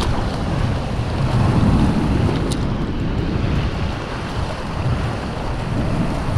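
Seawater rushing and splashing past a surfboard moving through the surf, with wind buffeting the microphone; a single sharp tick about two and a half seconds in.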